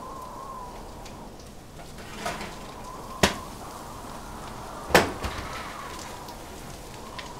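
Kitchen work at a stove: a few sharp clinks and knocks of pots and utensils, the loudest about five seconds in, over a steady hum.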